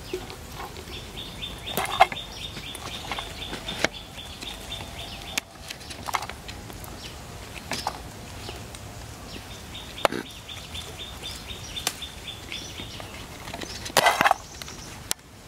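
Chili peppers being picked off the bush by hand: scattered sharp snaps and rustles of stems and leaves, with a louder clatter about two seconds in and again near the end as the chilies are handled in a stainless steel bowl. A high, pulsing trill sounds in the background twice, for a few seconds each time.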